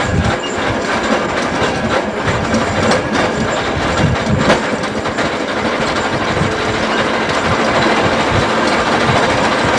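Tram running along street track, heard from inside the driver's cab: a steady rumble and rattle of wheels on rails, with a few sharp clicks and knocks.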